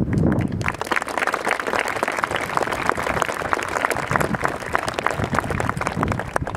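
Audience applauding: a dense patter of many hands clapping, which stops near the end.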